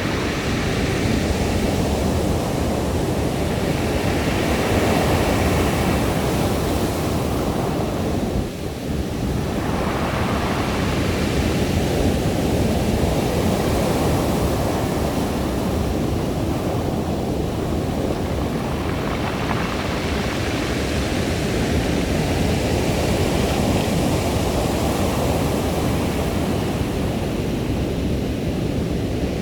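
Sea waves washing in and out over a beach of smooth round pebbles, the surf surging and easing every few seconds.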